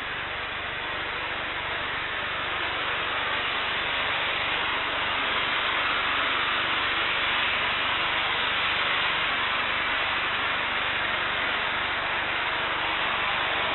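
Jet engine noise from a Boeing 747-8 freighter's four GEnx turbofans as it rolls along a wet runway after landing: a steady rushing sound that grows louder over the first five or six seconds, then holds.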